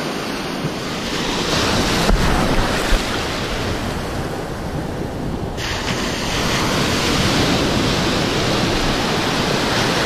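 Ocean surf washing and breaking close around the microphone at water level, with wind on the microphone. Two brief thumps come about two and three seconds in.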